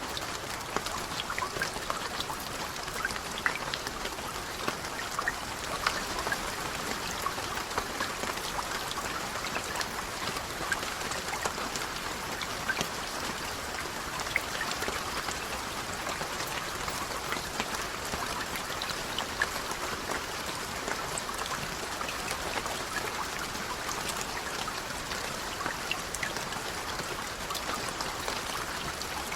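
Steady rain with many distinct raindrops ticking and pattering on a surface; no thunder is heard.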